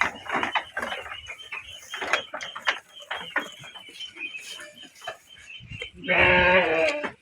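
A goat bleats once, loudly, for about a second near the end, after a run of irregular clicking and rattling.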